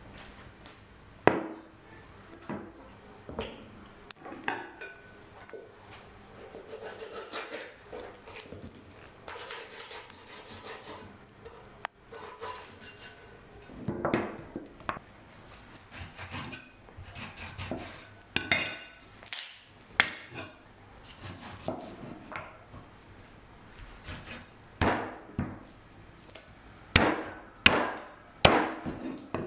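Food-preparation handling noises: irregular knocks, taps and clatter of cookware and utensils, with a sharp knock about a second in and a cluster of louder knocks near the end.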